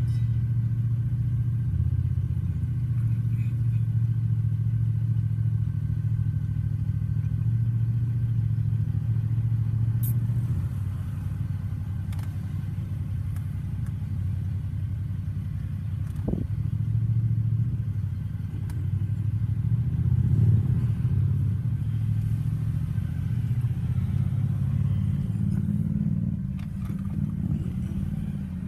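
Car cabin noise while driving: a steady low engine and road drone, with a few faint clicks and a short thump about halfway through.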